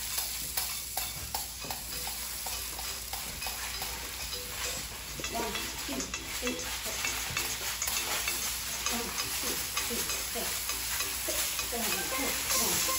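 Steady crackling, rustling noise full of small clicks, with faint short squeaky glides in the second half.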